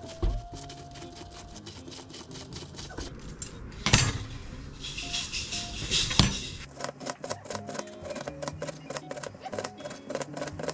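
Cabbage being shredded on a wooden cutting board: quick scraping clicks from a hand slicer, then rapid knife chops through the cabbage from about two-thirds of the way in, over light background music.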